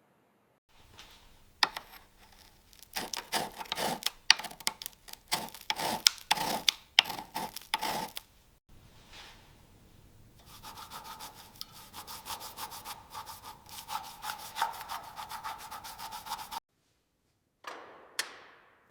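Hand-worked rubbing and scraping strokes on a surface. Loud, uneven strokes come first, then after a short pause a faster, steadier run of strokes. Two quick whooshes sound near the end.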